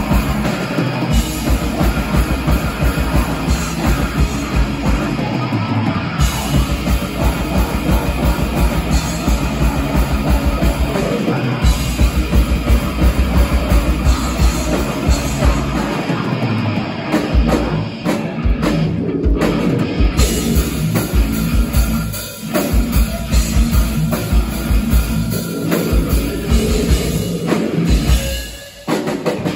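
Heavy metal/hardcore band playing live: distorted electric guitar and a hard-hit drum kit. It drops out briefly twice, about two-thirds of the way through and again near the end.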